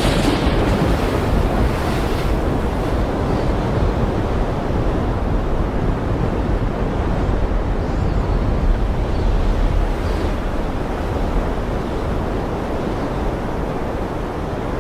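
Ocean surf: a steady rushing wash of waves with a deep rumble underneath, and a stronger surge of a breaking wave right at the start.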